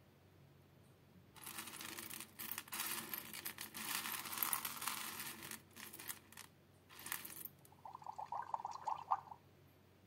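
Roasted coffee beans rattling and shifting in a glass dish as a hand stirs through them, in several spells over about six seconds. Near the end, a short warbling tone lasts about a second.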